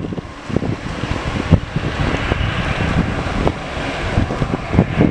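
Wind buffeting the microphone in gusts, over the steady hiss and rumble of a taxiing twin-engine jet airliner's engines.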